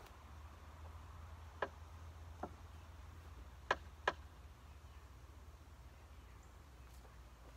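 Four faint, sharp knocks, the last two close together: a hammer striking the wooden shed frame, over a low steady rumble.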